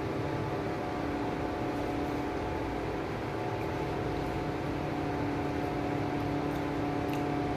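Heavy rain falling steadily, with a steady mechanical hum running through it.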